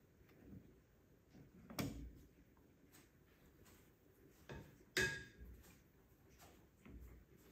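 Faint kitchen clatter of dishes and utensils: scattered soft taps and knocks, with two sharper clinks about two seconds in and about five seconds in, the second one ringing briefly.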